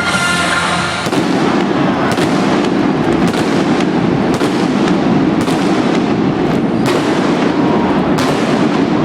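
Fireworks going off inside a domed stadium: a dense run of pops and bangs over a steady din, with music ending about a second in.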